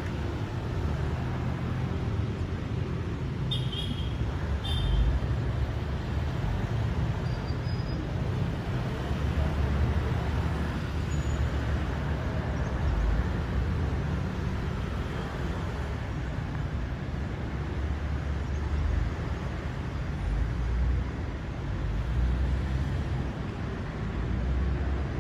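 Steady low rumble of city traffic with an uneven, swelling level, and two brief high squeaks a few seconds in.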